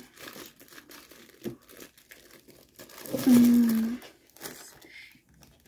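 Plastic packaging rustling and crinkling faintly as it is handled. A little after three seconds in, a woman's voice holds a short 'euh' sound for just under a second.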